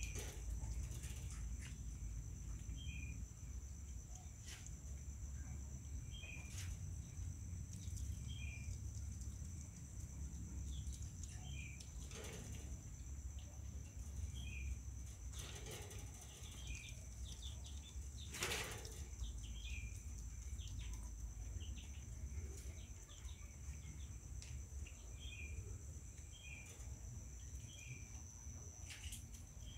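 A mongoose chewing and lapping at fried tofu, with small bite and smacking sounds every second or so and a few sharper clicks, the loudest about halfway through. Under it runs a steady high-pitched hum and a low rumble.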